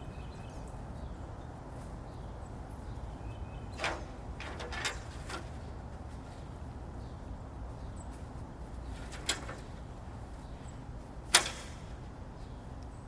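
A ladder being handled: several sharp knocks and clanks, the loudest about eleven seconds in, over a low steady rumble.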